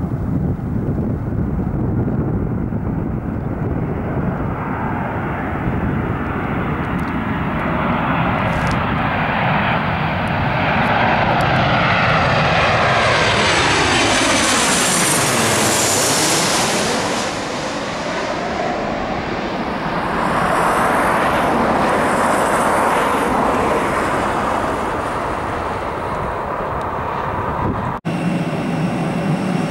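Twin-engine jet airliner on final approach passing low overhead. The engine roar builds, and a high whine sweeps down in pitch as it passes over about halfway through, followed by a broad rumble as it moves away. A cut shortly before the end switches abruptly to a different, steadier engine sound.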